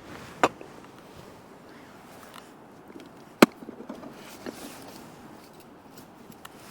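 Two sharp clicks or knocks, the second and louder about three seconds after the first, followed by a few lighter ticks and clatter of something being handled.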